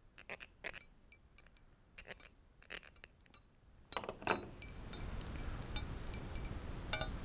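Small metal keys hung on string from a stick of wood, clinking against one another as a homemade wind chime, each clink leaving a thin, high ring. A few scattered clinks at first, then frequent clinking from about four seconds in as the chime is lifted and swings.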